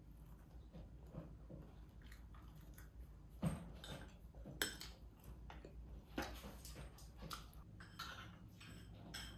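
Faint, scattered light clicks and knocks of small objects being handled, the two sharpest about three and a half and four and a half seconds in, over a low steady hum.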